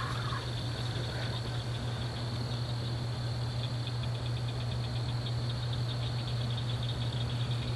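Crickets chirping in a steady, rapid pulsing trill over a constant low hum. A faint short call from an unidentified animal is heard right at the start.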